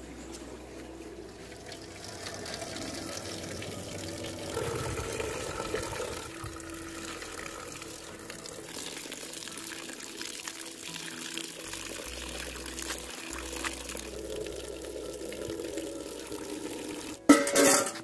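Water pouring and splashing into an aluminium pot of nettle leaves as they are washed and stirred with metal tongs. A short, loud clatter comes near the end.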